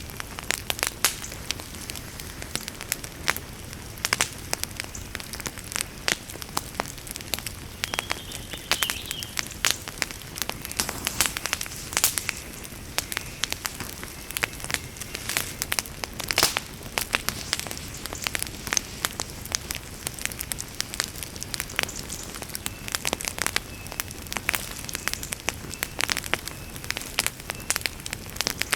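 Wood fire crackling and popping: irregular sharp snaps at many per second over a steady low hiss of burning.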